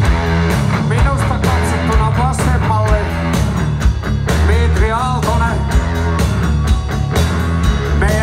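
Heavy metal band playing live: electric guitar, bass guitar and drums at full volume, with steady drum hits.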